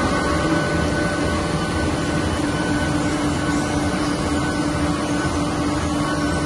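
Aster 180 book-sewing machine running, a steady mechanical noise with a constant hum and a fainter higher whine.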